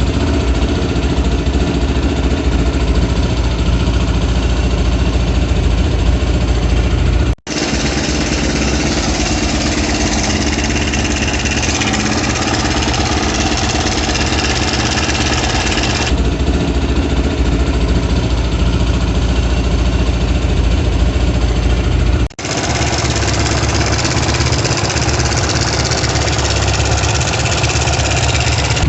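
Single-cylinder Zongshen ZS177MM motorcycle engine running steadily after a new timing chain has been fitted, in three spliced takes with two abrupt cuts.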